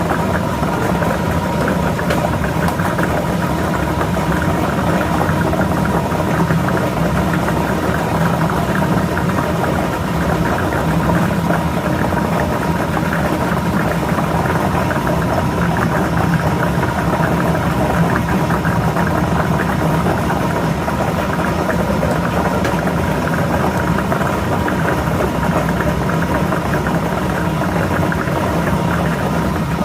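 Lotto ball drawing machine running steadily: a constant motor and blower hum with the balls churning inside.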